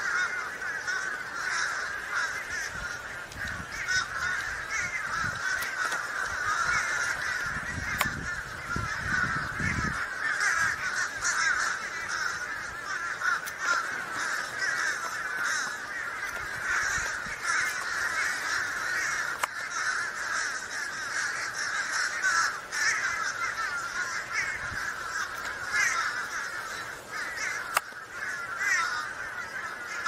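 A large flock of crows cawing all at once, a dense, unbroken chorus of overlapping caws: the alarm racket of crows mobbing a bald eagle.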